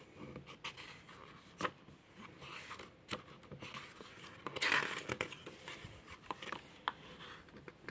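A page of a paper picture book being turned by hand: soft paper rustling and small clicks, with the loudest swish of the page about four and a half seconds in.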